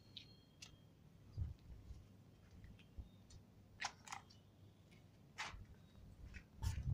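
Mostly quiet, with soft low thumps of a handheld phone being moved and a scattering of short, sharp clicks at irregular intervals, the loudest near the end.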